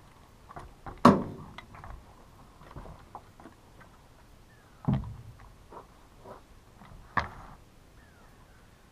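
Hard plastic and metal chainsaw parts being handled and fitted: sharp clacks and knocks, the loudest about a second in, another near five seconds and another about seven seconds in, with small clicks and rattles between.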